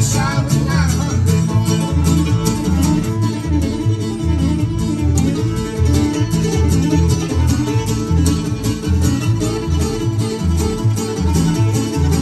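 Old-time string band playing an uptempo instrumental break, the fiddle bowing the lead over strummed acoustic guitar and a steady upright bass line.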